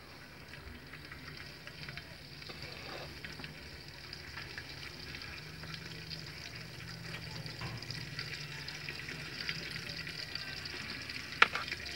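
Ghee heating in an aluminium pot over a wood fire, sizzling with small crackles and growing gradually louder as it heats, with one sharp click near the end.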